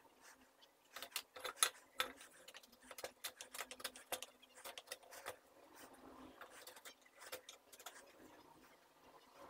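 Freshly sharpened wood chisel paring across the end grain of a board, a quick irregular run of sharp clicks as it slices the wood fibres, fainter in the second half.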